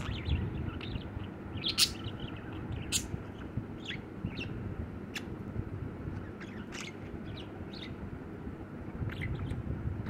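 Budgerigar chirping and warbling in short, scattered chirps and clicks, with sharper ones about two and three seconds in.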